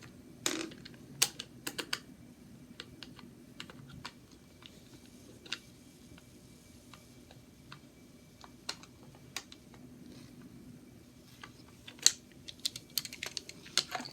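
Scattered light clicks and taps from handling a toy train's remote control and small screwdrivers, a few more near the start and near the end, over a faint steady hum.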